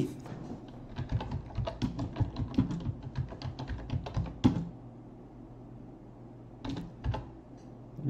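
Computer keyboard typing: a quick run of keystrokes for about four and a half seconds, a pause, then a few more key presses near the end.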